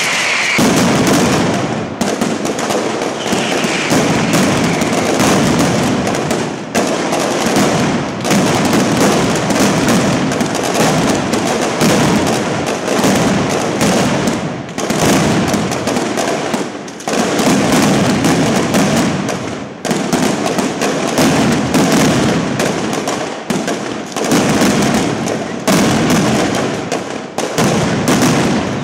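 Mascletà firecrackers going off in a dense, continuous rattle of rapid bangs, swelling and easing in waves every few seconds.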